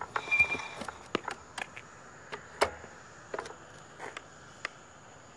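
A short high electronic beep near the start, then a string of scattered sharp clicks and knocks, about a dozen, from a stopped electric scooter being handled as its rider gets off.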